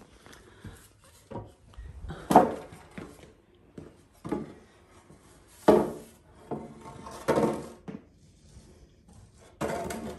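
Timber wall studs knocking and scraping against the wooden frame as they are moved and fitted into place: a run of irregular wooden knocks, some sharp, a few drawn out like a board sliding.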